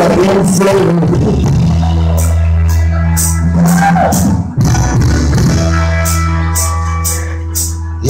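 Live band of amplified cigar box guitar, electric bass and drum kit playing, holding long sustained chords over drum and cymbal hits, with a brief break about four and a half seconds in.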